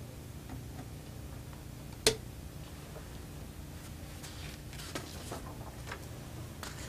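Handling clicks at a transistor test setup: one sharp click about two seconds in, then several fainter clicks and rustles, over a steady low hum.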